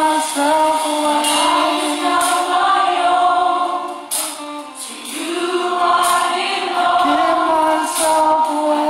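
Gospel worship song: several voices singing long held notes together in harmony, with a short break between phrases about halfway through.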